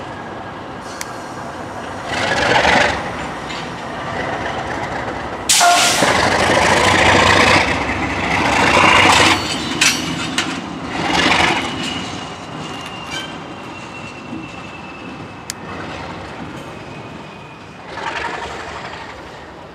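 Alco RS32 diesel locomotive, its Alco 251 V12 engine, moving light through a switch, with swells of running noise. The loudest swell starts suddenly about five seconds in, and a thin, steady wheel squeal is heard from about nine seconds in to about seventeen.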